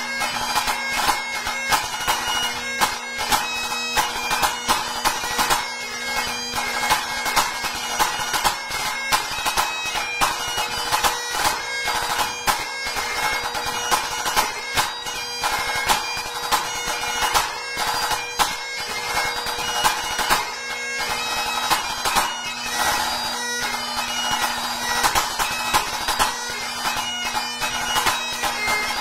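Great Highland bagpipe playing a tune over its steady drones, with a pipe band snare drum playing crisp, rapid rudiment strokes along with it.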